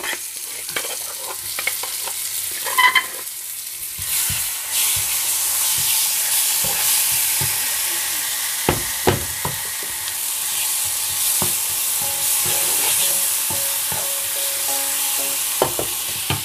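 Hot oil sizzling in a frying pan with a tempering of garlic, black lentils, mustard seeds and curry leaves. The sizzle grows louder about four seconds in, as a ground paste is tipped in from a stone bowl. A wooden spatula scrapes and knocks against the pan a few times as it stirs.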